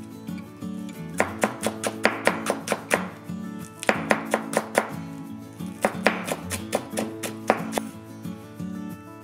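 Chef's knife chopping green onions on a wooden cutting board: three runs of quick, sharp knocks, about three strokes a second, with short pauses between. Background guitar music plays underneath.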